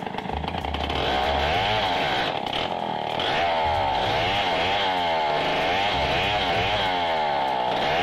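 Two-stroke chainsaw running at high revs while cutting a felled coconut trunk, its pitch wavering up and down over and over under the load. It picks up to full speed about a second in.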